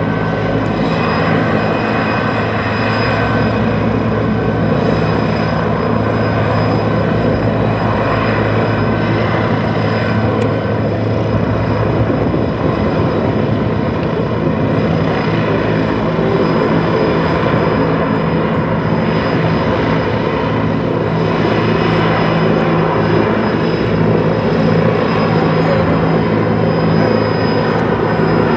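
Aircraft engines running loud and steady, with a continuous drone and steady whining tones. One low tone in the drone drops away a little under halfway through.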